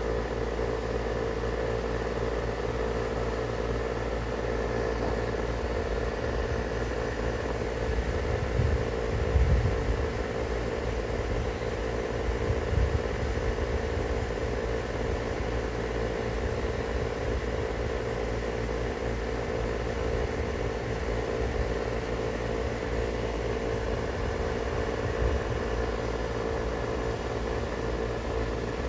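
A steady mechanical hum with a low drone and a held mid tone, and a few low rumbles about nine and thirteen seconds in.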